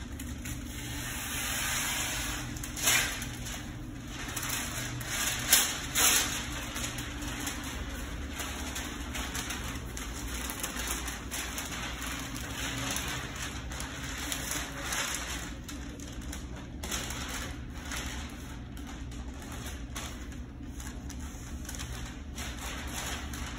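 Masking tape and masking paper being handled on a panel: irregular crackling and rustling, with a few louder sharp tearing sounds about three and six seconds in, over a steady low shop hum.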